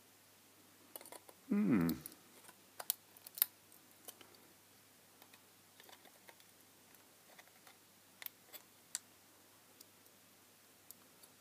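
Side cutters snipping and crunching through the thin metal screw base of an LED filament lamp: scattered sharp clicks and small crunches. A brief pitched sound falling in pitch about a second and a half in is the loudest moment.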